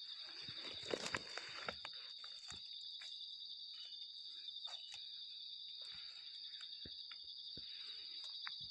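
A steady, high insect drone of the forest, with short clicks and brief rustles of leaves and twigs scattered through it.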